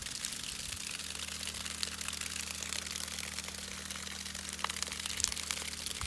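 Steady hiss of water jetting under pressure from the end of a septic distribution lateral during a squirt test, with a low steady hum underneath.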